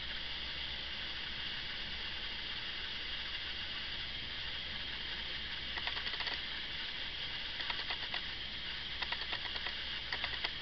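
Steady recording hiss over a low hum, broken by short bursts of faint clicking about six seconds in and again several times near the end.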